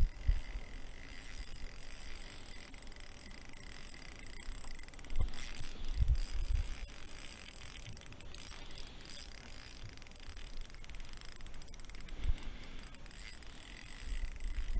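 Small spinning reel being cranked in a steady retrieve, a light mechanical ticking and whirring, with a few low handling thumps from the rod.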